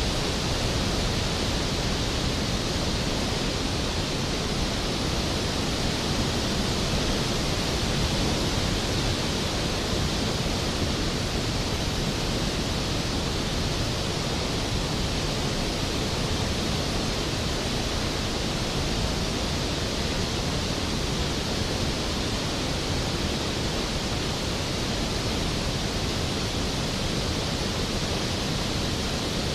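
Skógafoss waterfall's heavy, steady rush of falling water, a constant roar spread across low and high pitches with no change.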